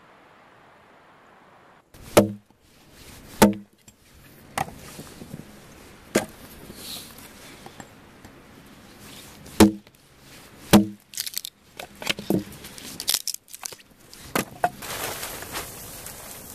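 A blade chopping into a wooden stake: about a dozen irregular sharp knocks, the loudest ones with a hollow wooden ring. A steady hiss rises near the end.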